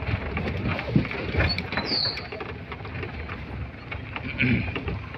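Open safari jeep driving over a rough dirt forest track: the engine rumbles along with repeated knocks and rattles from the bumps. A single short high chirp sounds about two seconds in.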